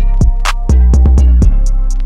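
Electronic background music with a drum-machine beat: quick, evenly spaced hi-hat ticks and kick drums over a deep bass that slides down in pitch.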